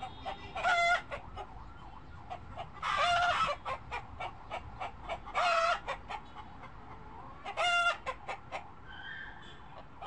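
Chickens clucking steadily in short, quick notes, with four louder drawn-out calls about two seconds apart.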